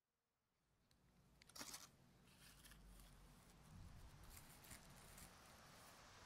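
Faint night ambience fading in from silence: a soft low rumble and hiss with scattered short crisp crackles or rustles, the loudest pair about a second and a half in.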